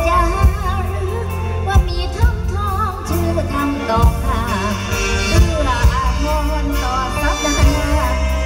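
Live amplified mor lam concert music: a singer's voice wavering in vibrato over heavy bass and drum hits from the band, played through a large PA system.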